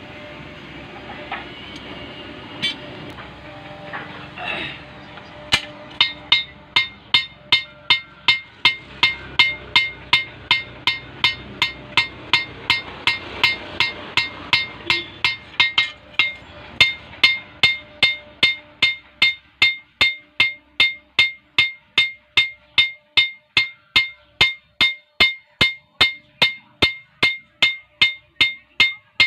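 Hand hammer striking the steel blade of an old tree-cutting knife on an anvil as a blacksmith reshapes and edges it. After a few scattered knocks, steady ringing metallic blows begin about five seconds in, about two a second.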